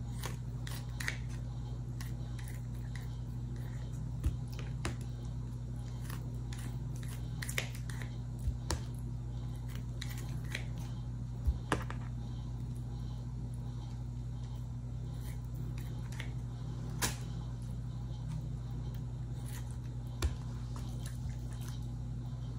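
Kitchen scissors snipping through raw chicken thighs: scattered short snips and clicks, with soft wet handling of the meat. A steady low hum runs underneath.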